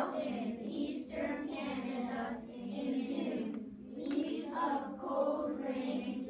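A class of children reading aloud in unison: many young voices overlapping in a chorus, with short pauses between phrases.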